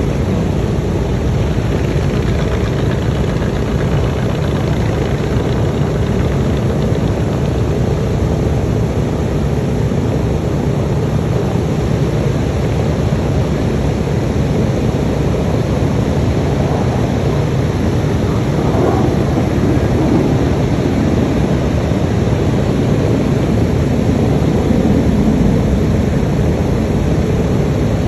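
Piston-engine propeller aircraft running on the flight line: a steady low engine drone that grows a little louder in the second half.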